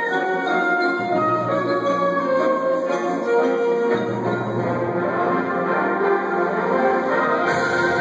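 A high school concert band plays held chords, led by flutes and clarinets. A low bass note comes in about a second in, and the harmony shifts about four seconds in.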